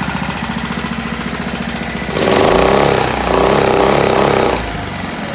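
Briggs and Stratton 5 hp air-cooled four-stroke outboard motor idling, then revved up twice in quick succession, about two seconds in, before dropping back to idle.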